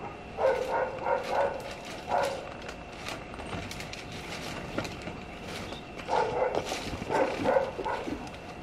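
A dog barking in two bouts of several short barks, one about half a second in and another from about six seconds in, with scattered short clicks and snaps in between.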